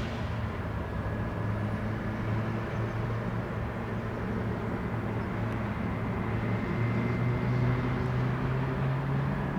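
Airbus A319 jet engines on approach, a steady low hum with a faint high whine coming in about two-thirds of the way through, slightly louder near the end.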